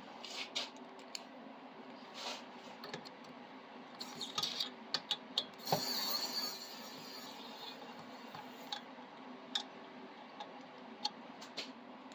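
Scattered light clicks and taps of a screwdriver working small screws out of a 3D printer's metal frame, a little busier midway, over a faint steady hum.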